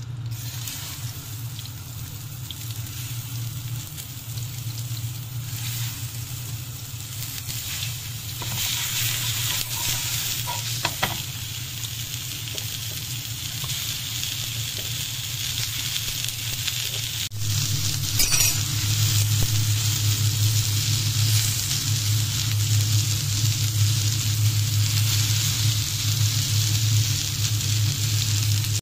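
Chicken kofta skewers sizzling steadily in melted sheep's tail fat on a nonstick grill pan. The sizzle grows louder a little past halfway, over a steady low hum.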